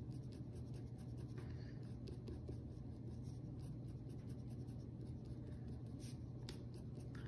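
Pitt Artist Pen felt-tip scratching faintly on paper in short quick strokes, drawing small tree branches, under a low steady hum.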